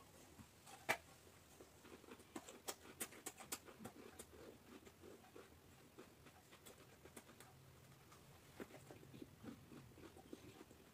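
Crunching bites and chewing of a raw chayote: a sharp crunch about a second in, a run of crisp crunches between about two and four seconds, and more chewing near the end.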